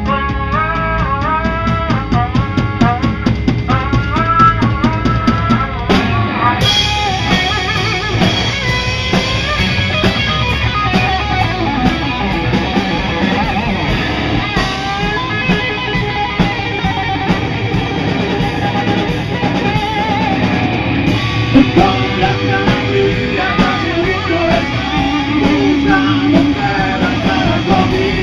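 Rock band playing an instrumental passage: electric guitar lead phrases with bent notes over a drum kit beat. About six seconds in, the band's sound fills out.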